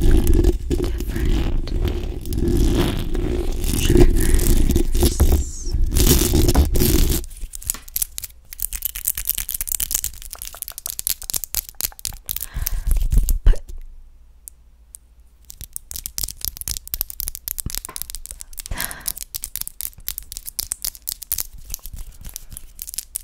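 Fingers and long nails scratching and rubbing directly on a Blue Yeti microphone's metal mesh grille, a dense scraping with heavy low rumble. About seven seconds in it gives way to much quieter, scattered crackly clicks and taps as the hands move off the grille.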